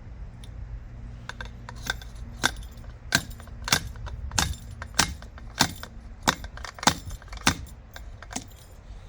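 Steel seal driver hammered repeatedly against an upside-down motorcycle fork to seat the fork oil seal: about a dozen sharp, ringing metal-on-metal clanks, roughly one every 0.6 s.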